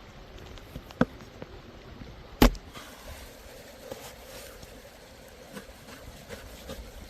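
Two sharp knocks, one about a second in and a louder one about a second and a half later, with a few faint light clicks over a low steady background.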